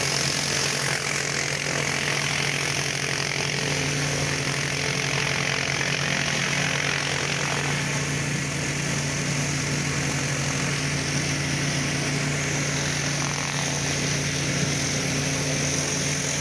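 Belt-driven 4,000 PSI pressure washer's engine running steadily under load, with the hiss of its high-pressure water spray as a driveway is washed.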